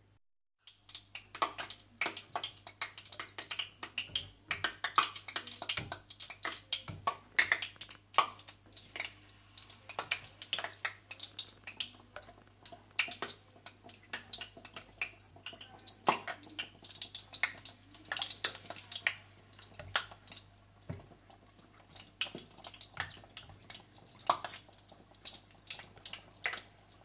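Batter-coated chicken pieces deep-frying in a pot of hot oil: a busy, irregular crackling and popping. A faint steady low hum runs underneath.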